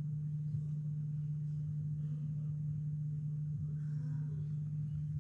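Steady low electrical hum in the sound-system feed, one unchanging tone.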